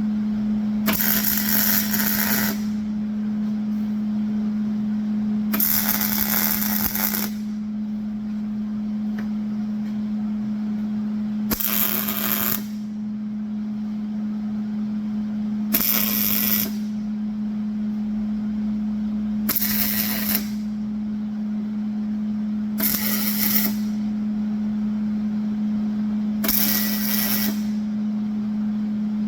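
Welder laying seven short tack welds on steel angle iron, each a crackling burst of a second or so, a few seconds apart. A steady hum runs underneath.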